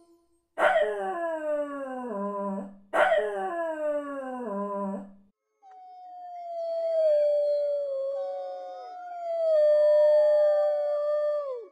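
Dogs howling: two long howls a couple of seconds apart, each sliding down in pitch, then several howls overlapping in a long, drawn-out chorus.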